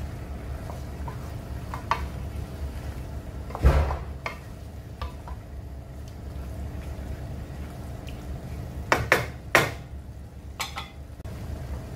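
Wooden spatula stirring and turning chicken pieces in a non-stick wok, knocking and scraping against the pan, over a low sizzle of the chicken cooking in soy sauce. The loudest knock comes just before four seconds in, with a quick cluster of knocks around nine to ten seconds.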